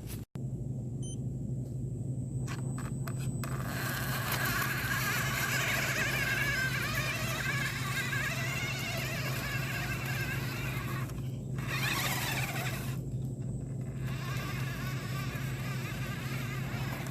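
Small electric motors of a Huina radio-controlled excavator whining, the pitch wavering up and down as it works, over a steady low hum. The whine starts a few seconds in and breaks off briefly twice, with one quick falling glide between the breaks.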